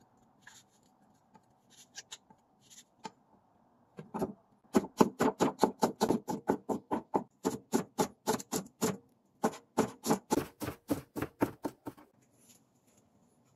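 Steel cleaver chopping onion and spring onion on a wooden cutting board: a few light taps at first, then rapid, even strokes about four a second, with a brief pause partway.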